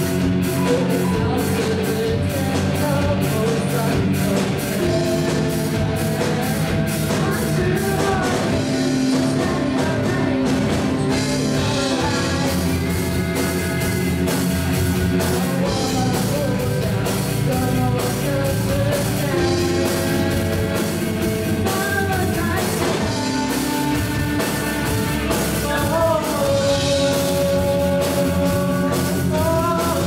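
Live rock band playing: drum kit, electric guitars and keyboard, with a male and a female vocalist singing over a steady beat.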